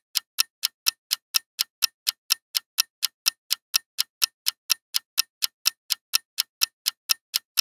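Clock-ticking sound effect for a quiz countdown timer: sharp, even ticks, about four a second.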